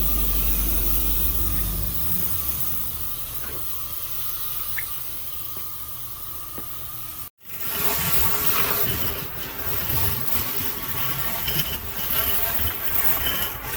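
Pressure-washing gear spraying water onto the patio floor with a steady hiss. The sound cuts out abruptly a little past halfway, then comes back noisier and more uneven.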